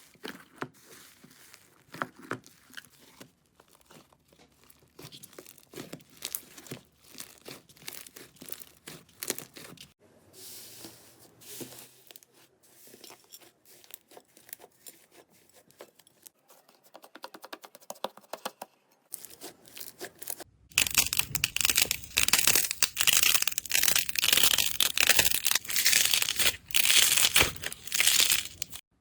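Slime being squeezed and stretched by hand, making a steady run of small crackles and pops. About two-thirds of the way in the crackling becomes much louder and denser.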